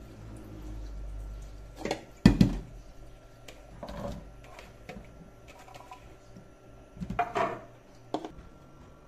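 Wet sliced bitter gourd being handled in a bowl in a stainless steel sink, with sharp knocks and clatter of the bowl against the sink. The loudest knocks come about two seconds in, and a second cluster comes about seven seconds in.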